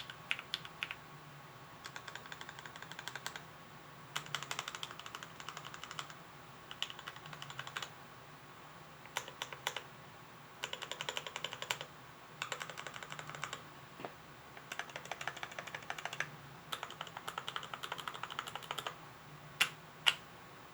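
Typing on a mechanical keyboard with lubed, filmed KS3 Gateron Yellow linear switches in a stacked acrylic Arisu case, in quick runs of keystrokes separated by short pauses. Two louder single key strikes near the end.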